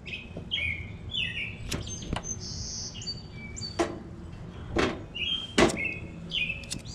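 Birds chirping, with a handful of sharp clicks spread through as hands work the knobs and lighter of a Coleman two-burner propane stove to light a burner.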